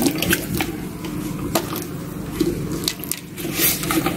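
Thin plastic water bottle crinkling and nylon bag fabric rustling as the bottle is handled against the backpack, in many short, irregular crackles.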